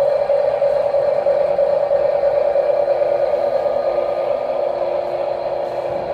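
Small electric motors and plastic gearboxes of a Huina RC construction model whirring steadily, with a constant mid-pitched whine.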